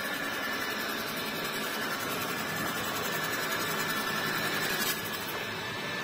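ILIFE T20s robot vacuum cleaning: a steady whir from its suction fan and brushes, with one brief click about five seconds in.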